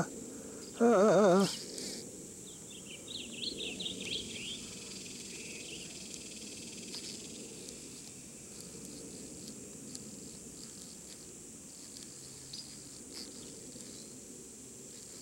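Outdoor riverside ambience: a steady high insect drone, with a bird's quick run of chirps a few seconds in. A man's short loud call cuts in about a second in.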